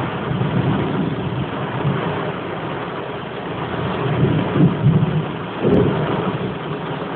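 Heavy thunderstorm rain with a steady hiss and rolling thunder. The rumble swells from about four seconds in, with a sudden sharper clap just before six seconds.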